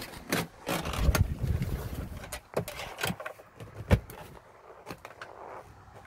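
Handling noise from a 12 V power plug and cable being worked into place by a car seat: a run of sharp plastic clicks and knocks with rustling between them, the loudest knock about four seconds in.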